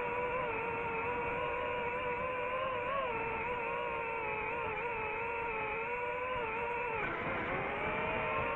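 DJI FPV drone's motors and propellers whining at a steady pitch in flight, wavering slightly. About seven seconds in the pitch drops sharply and climbs back as the motors slow and speed up again.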